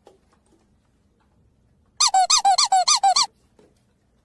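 Young pug puppy giving a quick run of about nine high-pitched squeaks, each rising and falling in pitch, starting about two seconds in and lasting just over a second.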